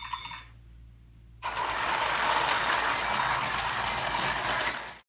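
Battery-powered Ninky Nonk toy train running around its plastic track: a steady motor whir with plastic wheels rattling. It starts about a second and a half in and cuts off abruptly near the end. A few steady electronic tones die away at the very start.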